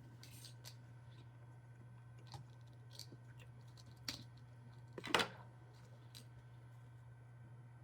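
Small clicks and taps of food being handled, with one louder crackle about five seconds in, over a steady low hum.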